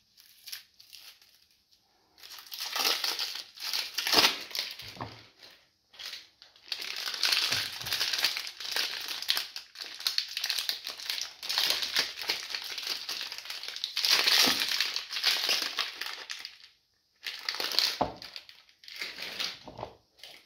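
Clear plastic wrapping crinkling and crackling as it is pulled off a cube of soap by hand, in long bouts with short pauses and a loud flurry about four seconds in and again near the middle.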